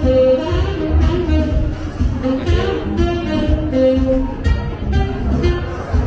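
Music with a steady beat and a melody line over it.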